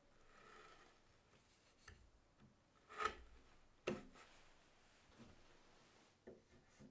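Wood chisel squaring up the corners of freshly routed hinge mortises in a door edge: a faint scrape, then a few sharp clicks of the chisel cutting into the wood, the loudest two about three and four seconds in.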